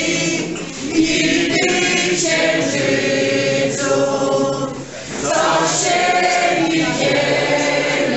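A group of costumed folk singers sings a folk song in chorus, with a short break between phrases about five seconds in.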